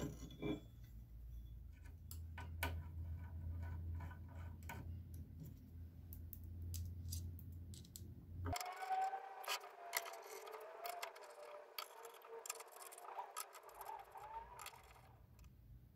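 Faint, irregular clicks and clinks of small steel socket-head screws and metal parts being handled while linear rails and aluminium carriage plates are assembled. A low steady hum lies under the first half and cuts off suddenly about halfway through.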